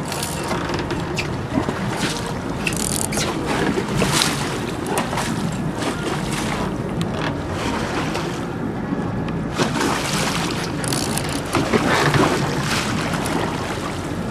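A charter fishing boat's engine running offshore, mixed with wind on the microphone and irregular splashing of water.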